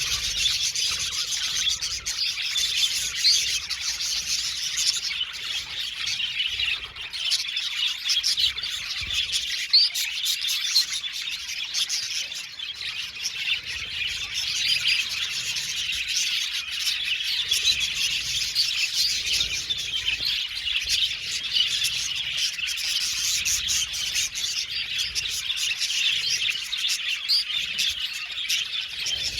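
A flock of budgerigars chattering and chirping together in a dense, continuous warble of many overlapping short chirps.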